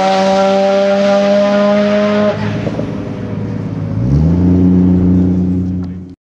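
Car engine at full throttle down a drag strip, a steady high note sliding slightly lower, which stops abruptly about two seconds in. About four seconds in, an engine revs up and holds a steady lower note until the sound cuts off near the end.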